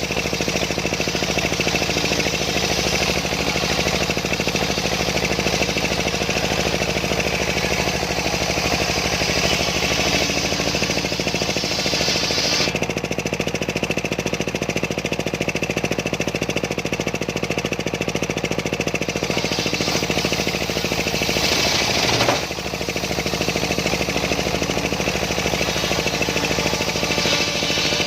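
Homemade engine-driven circular saw bench ripping a large sengon log: the engine runs steadily under load while the blade's high-pitched cutting noise rises and falls with the feed, dipping briefly about three quarters of the way through.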